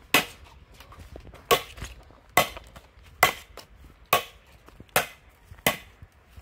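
Sharp blows of a hand tool on wood, seven in a row at a steady pace a little under one a second.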